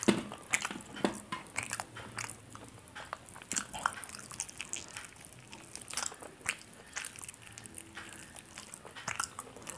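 A man biting and chewing grilled chicken by hand: an irregular run of quiet crunches and wet mouth clicks.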